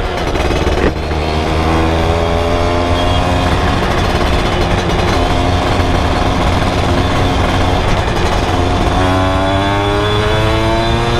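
Yamaha F1ZR's single-cylinder two-stroke engine running through a CLD C1 aftermarket stainless exhaust while the bike is ridden, the engine note holding fairly steady and then rising as it revs up near the end. A short click comes about a second in, and wind rushes over the helmet-mounted microphone.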